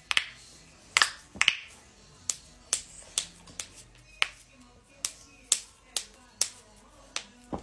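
Human joints cracking: a run of sharp pops, more than a dozen, irregularly spaced, the loudest about a second and a half in.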